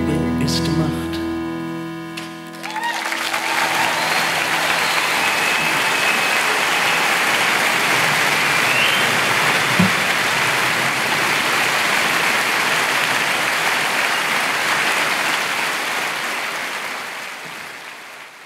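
A live band's closing chord rings and fades over the first couple of seconds, then a large studio audience applauds, with a few whistles. The applause fades away near the end.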